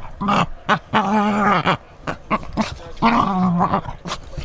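English Springer Spaniel puppy growling in play, not aggression, in two long wavering bouts about a second in and again around three seconds, with short clicks between.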